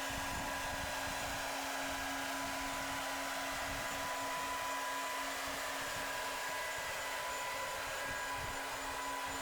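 A steady machine noise: an even hiss with a constant low hum that never changes in level.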